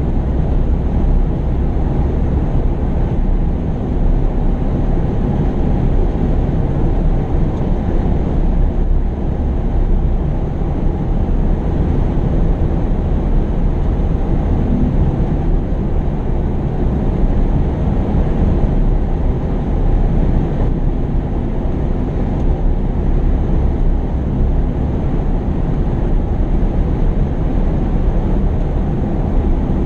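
Heavy diesel construction machinery running steadily: a continuous low engine rumble that holds an even level throughout.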